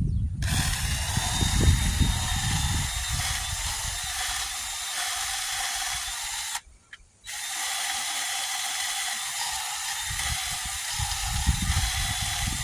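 Electric drill running with a long electrician's drill bit, with a steady whine. It stops for under a second about halfway through, then starts again. Low rumbling knocks come at the start and again near the end.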